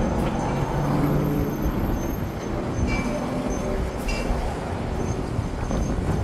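Steady rumble of road traffic with vehicle engines humming, mixed with wind buffeting the microphone.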